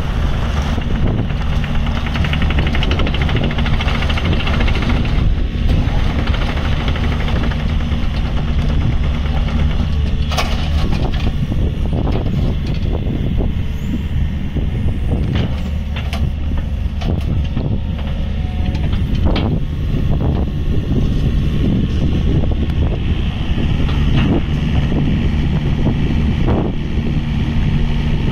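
Yanmar VIO50-6A mini excavator's diesel engine running at a steady speed while the boom, arm and bucket are worked and the upper structure swings. Several short, sharp knocks are heard near the middle.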